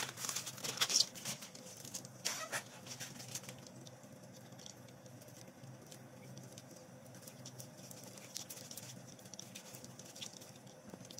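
Corn husk and silk being pulled off an ear of corn by hand: crisp rustling and tearing for the first few seconds, then only faint occasional rustles.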